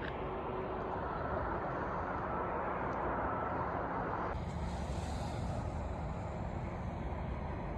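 Steady outdoor rushing noise, of the kind made by wind on the microphone or traffic on a nearby road. It shifts in tone about four seconds in, becoming thinner and hissier.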